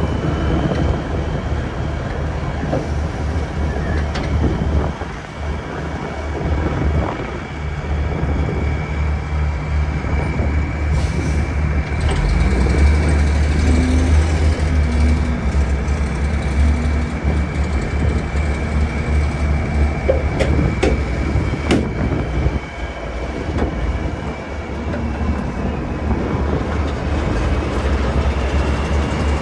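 Heavy diesel engine running with a deep steady rumble, a faint steady high-pitched whine above it, and scattered rattles and knocks. It grows louder for several seconds in the middle, then eases off.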